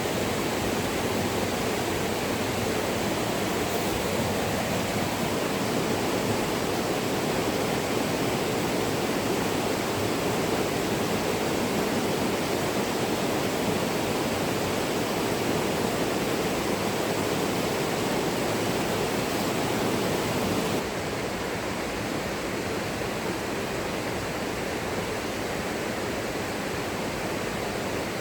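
Steady rush of flowing river water, an even noise with no breaks. About three-quarters of the way through it drops a little in level and loses some of its hiss.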